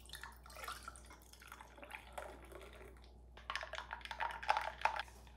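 Milk poured from a carton over ice in a glass mug, with ice cubes crackling and clinking against the glass; the clinking and splashing grow denser near the end.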